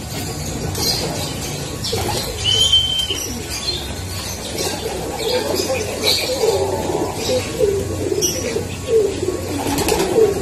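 Racing pigeons cooing at their loft, many low wavering coos overlapping and growing busier after a few seconds, with wing flaps and a brief high whistle about two and a half seconds in.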